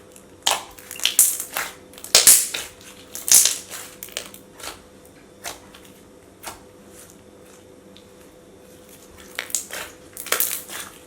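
Thick slime being squished and worked by hand, giving sharp clicks and small pops in quick clusters, with a quieter stretch in the middle.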